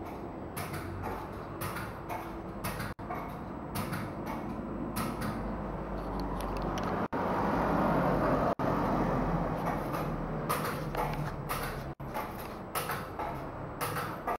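Tyre-fitting work in a shop: a steady machine hum with scattered clicks and clanks of tools and wheel parts. It swells in the middle and cuts off briefly several times.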